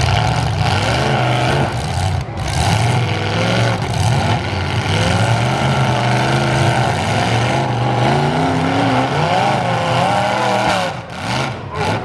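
Two modified full-size demolition derby cars' engines revving hard under load as the cars shove against each other, the pitch climbing and falling again and again. The noise dips briefly near the end.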